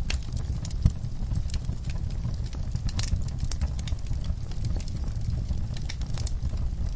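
Wood fire in an outdoor firepit crackling, with many irregular sharp snaps and pops over a steady low rumble.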